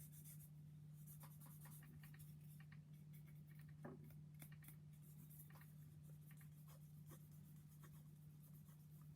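Faint, irregular scratching strokes of a fine sanding stick rubbing on a small plastic model-kit part, over a steady low hum.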